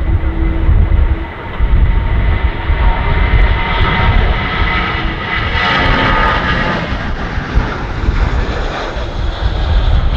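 Jet engines of a Boeing 737-800 whining, building to a peak about six seconds in and then easing off, over heavy gusting wind rumble on the microphone.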